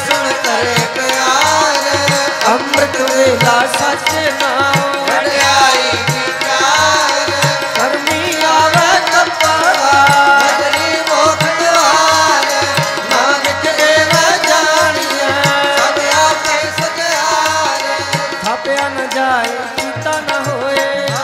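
Harmoniums and a tabla playing Sikh kirtan music, the tabla keeping a steady beat under the harmoniums' reed melody.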